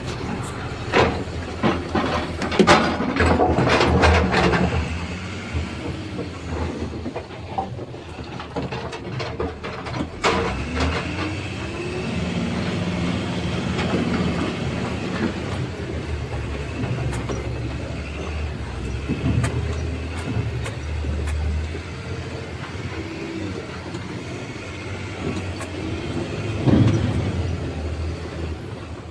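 Heavy diesel machinery running, its engine rising and falling in revs, with a cluster of clattering knocks in the first few seconds.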